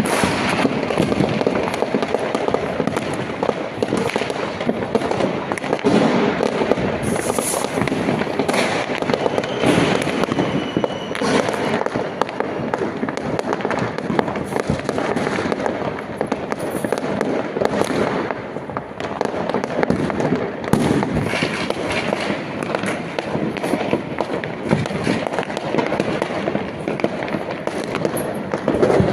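Fireworks and firecrackers going off continuously: a dense, unbroken crackle of many overlapping bangs and pops that never lets up.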